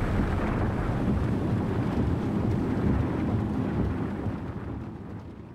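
Storm wind and heavy rain rushing around a vehicle on the road: a dense, deep, rumbling rush that fades away over the last second or so.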